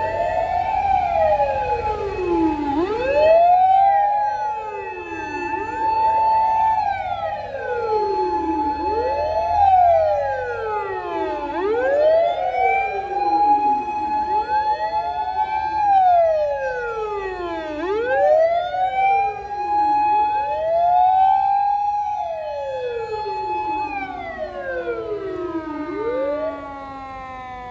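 Several fire engine sirens wail together, overlapping, each climbing quickly in pitch and then sliding slowly down about every three seconds, over a low rumble of passing trucks. The sirens fade near the end as the trucks move off.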